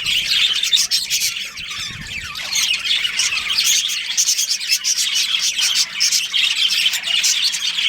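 A colony of budgerigars chirping and squawking together, many short calls overlapping in a continuous chatter.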